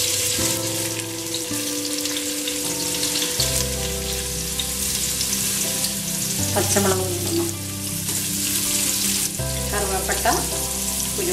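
Sliced onions sizzling as they fry in hot oil in a pressure cooker pot, a steady crackling hiss throughout.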